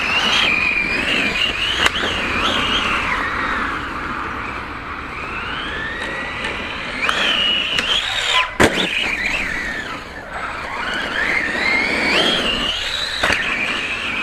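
Brushless electric motor of a VKAR Racing Bison V2 RC truggy whining as it drives, the pitch rising and falling with the throttle. Two sharp knocks, about two seconds in and about eight and a half seconds in.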